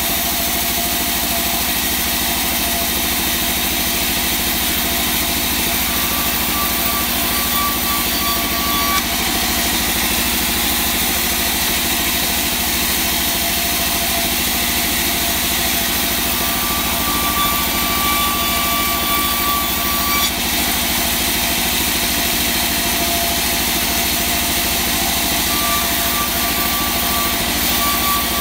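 Large vertical band saw running steadily while a slab of wangkal wood is fed through it, a dense mechanical noise over a low hum. A thin high whine comes and goes three times, about 6, 16 and 26 seconds in.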